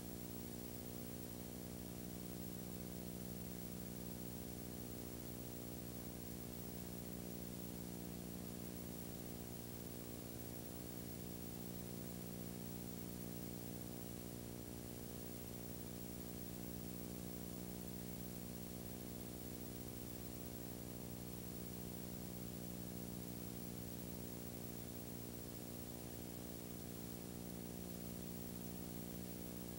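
Steady electrical hum with a hiss over it and no other sound: the bare noise floor of a home-movie film transfer that has no recorded soundtrack.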